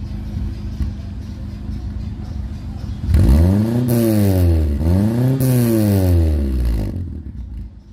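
Nissan Sentra engine heard through a newly fitted sport exhaust resonator with a 4-inch round tip: idling steadily, then revved twice about three seconds in, each rev rising and falling in pitch, before settling back.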